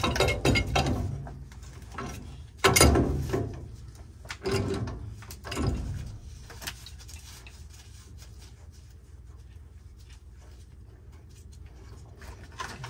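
Threaded black iron pipe nipple being unscrewed from its fitting: scraping and clicking of metal on metal in several bursts over the first six seconds, then quieter, over a steady low hum.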